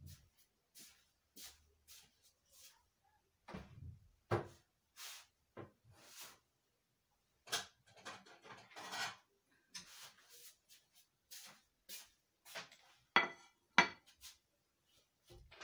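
Dishes being handled: a string of short scrapes and knocks, then two sharp, louder knocks near the end as a white plate is set down on the stone counter.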